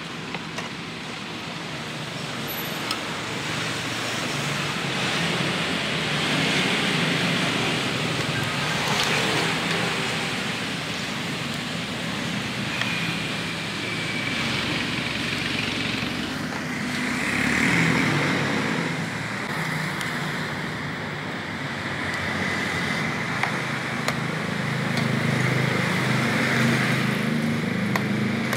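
Road traffic running past, a steady wash of engines and tyres that swells and eases as vehicles go by.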